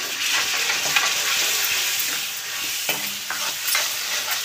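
Chopped vegetables and spices frying in oil in a metal kadhai, sizzling steadily, while a steel ladle stirs and scrapes them around the pan with short clinks and scrapes.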